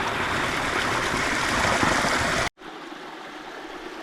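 Spring water running and splashing steadily. About two and a half seconds in it cuts off abruptly, leaving a much quieter steady rush.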